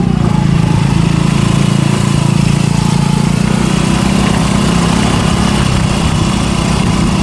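Small motorcycle engine running steadily as the bike rides along a dirt lane, heard from on the bike, with steady wind and road noise.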